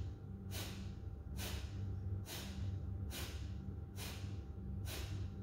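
Kapalabhati breathing: short, forceful exhalations pushed out through the nose, six of them in an even rhythm of a little under one a second.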